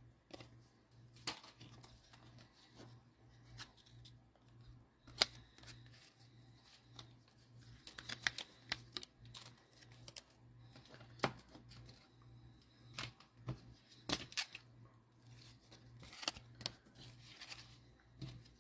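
Faint, irregular clicks, taps and light rustles from hands working at a desk, the sharpest about five, eleven and fourteen seconds in, over a low steady electrical hum.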